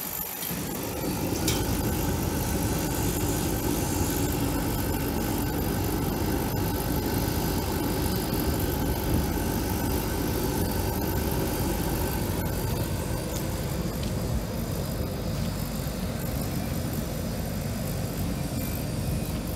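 Orion HPE310-L kerosene jet heater lighting up: about a second in, a steady low roar of burner and blower sets in and runs on evenly.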